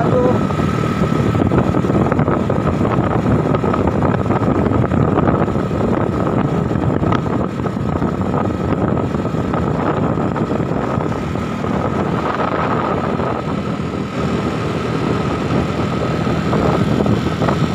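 Motorcycle riding along a road, heard from a helmet-mounted camera: a steady rush of engine, road and wind noise with a faint steady whine.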